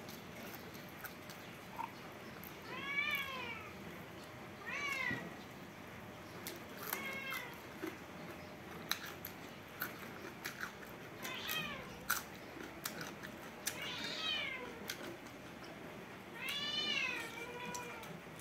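A cat meowing about six times, each call rising then falling in pitch, with two longer calls near the middle and end. Between the calls come close, sharp mouth clicks of someone chewing a handful of rice.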